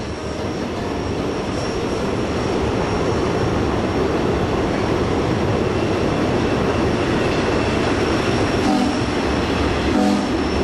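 1926 Frisco 1522 steam locomotive and its train running along the rails, a loud, steady noise of train movement. Near the end come two short toots that fit the locomotive's whistle.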